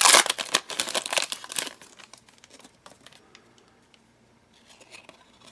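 Crinkling and tearing of a foil trading-card pack wrapper being handled and opened, loud for the first couple of seconds, then only faint rustles.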